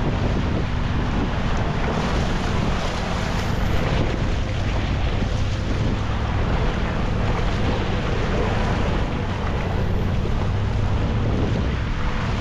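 Off-road Jeep driving through mud and standing water: the engine runs steadily under a wash of splashing, with wind buffeting the microphone.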